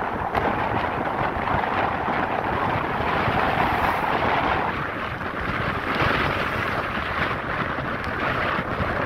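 Strong wind blowing across the microphone: a steady, loud rushing noise that does not let up.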